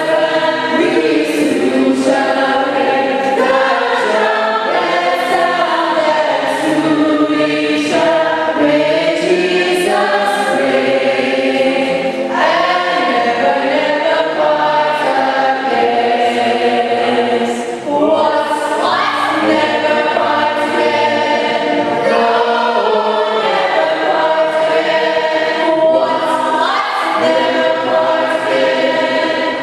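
A church choir singing a hymn, several voices in harmony.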